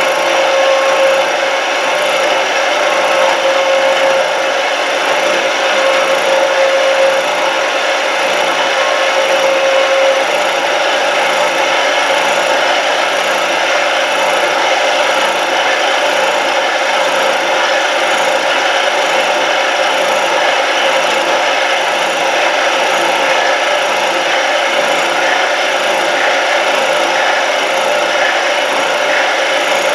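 CNC mill's indexable end mill with APMT 1003 carbide inserts cutting steel: a steady milling noise as the cutter feeds along the block on a light finishing pass at slowed feed. A thin steady tone sounds over it for the first third and then fades away.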